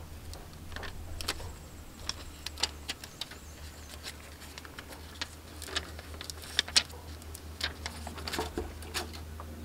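Paper backing being peeled off a vinyl decal on transfer tape, crinkling in irregular sharp crackles and snaps, over a low steady hum.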